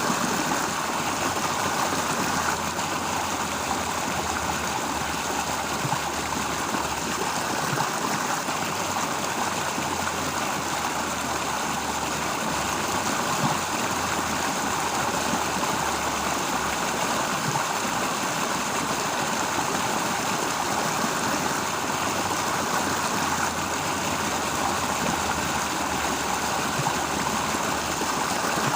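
Steady rushing of flowing stream water, with a low rumble beneath it.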